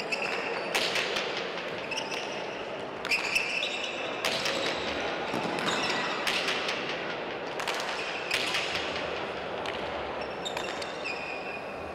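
A frontón rally: sharp cracks of the pelota being struck and hitting the front wall and floor, about one to two a second, echoing in the large hall, with short high squeaks between the hits.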